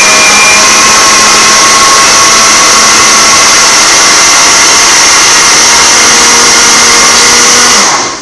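Countertop blender motor running at full speed, a loud steady whir, switched off near the end.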